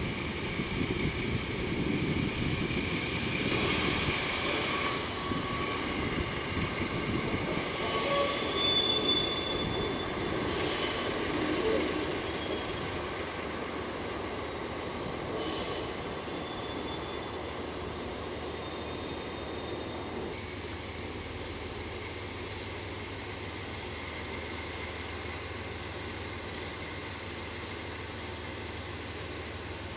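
Steel train wheels squealing in several high, whistling bursts as rolling stock moves slowly over depot track, over the rumble of diesel running. The squeal stops about sixteen seconds in, leaving a steady low diesel hum.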